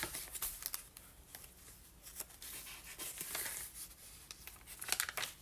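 Paper pages and flaps of a handmade junk journal being handled and turned: soft rustling with scattered light clicks, a little busier near the end.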